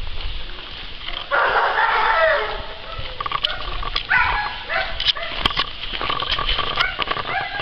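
Animal calls: one long call with falling pitch about one and a half seconds in, then shorter calls later on.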